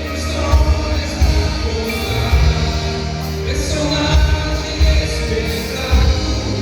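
Live gospel worship music: a band plays sustained keyboard chords over a heavy bass and drum beat, with some singing.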